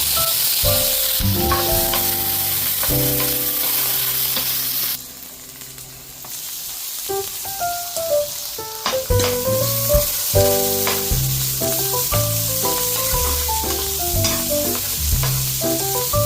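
Food sizzling as it fries in a pan, under background music with a melody and bass line. The sizzle and music drop away briefly about five seconds in, then resume.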